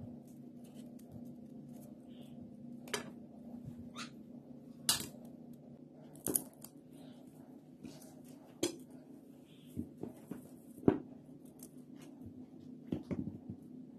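Knife peeling raw green bananas over a ceramic plate and steel bowl: scattered sharp clicks and taps of the blade and peel pieces against the dishes, about seven in all, the loudest late on, over a steady low hum.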